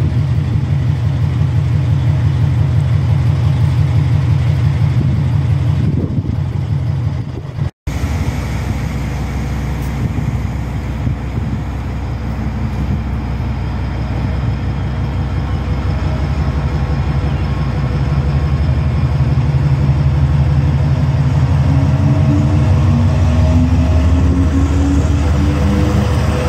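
Class 70 diesel locomotive's GE PowerHaul V16 engine running with a heavy low throb as the locomotive, running light without wagons, approaches and passes close by. It grows louder and its engine note climbs toward the end.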